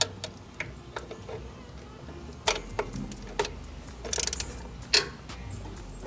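Ratchet wrench clicking as a worm-drive hose clamp on a radiator hose is tightened down: scattered single clicks, with a quick run of clicks about four seconds in.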